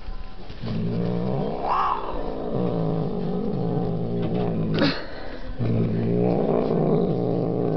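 Domestic cat growling in long low drawn-out growls, broken by short pauses for breath, rising into a yowl about two seconds in and giving a quick rising cry about five seconds in: a hostile warning growl.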